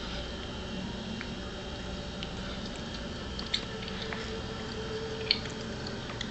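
Steady room noise with two short sharp clicks, about three and a half and five seconds in, the second the louder.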